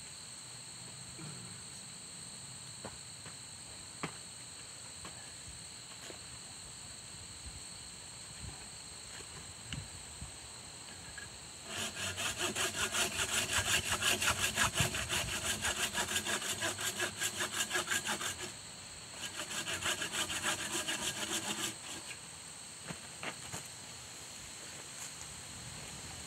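Wood being sawn by hand, with quick even back-and-forth strokes at about four a second in two runs of several seconds and a brief pause between. A few light knocks come before it.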